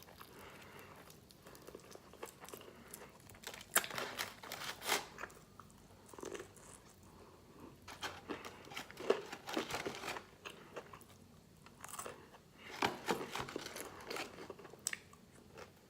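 Close-up biting and chewing of crispy fried chicken: crisp crunches of the breading come every second or two, with wet chewing between them.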